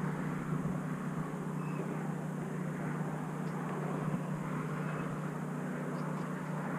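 Boat motor running steadily: a constant low hum under an even rushing noise.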